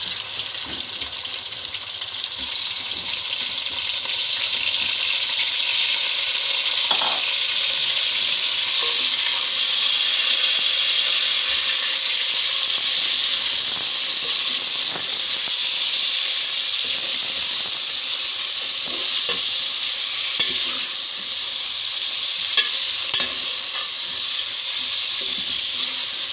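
Raw chicken pieces sizzling in hot oil with fried onions and ginger-garlic paste in a metal pot, stirred with a steel ladle. The sizzle gets louder about two seconds in and then stays steady as the chicken is browned (bhuna).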